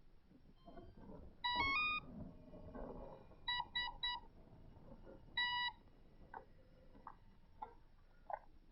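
Electronic beeps from a model airplane's power system, most likely the electric motor's speed controller arming: a quick rising run of tones, then three short beeps and one longer beep, followed by a few light clicks.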